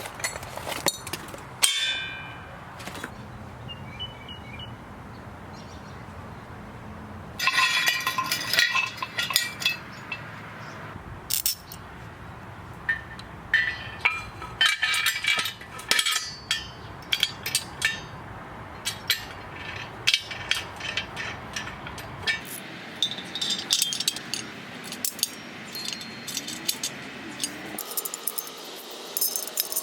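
Steel squat-stand parts and hardware clinking and clanging as they are handled and fitted together: irregular metal knocks, each with a short ring, coming in busy clusters.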